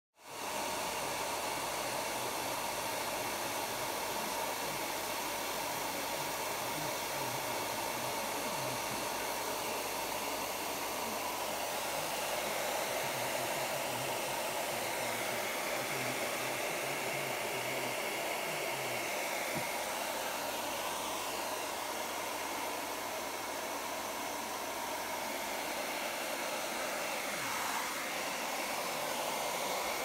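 Domestic hairdryer lying on the floor, running steadily on its cool setting: an even rush of air with a faint whine from the motor.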